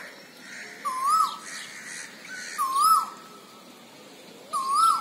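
Male Asian koel calling: a short call that dips, rises and falls, repeated three times about two seconds apart.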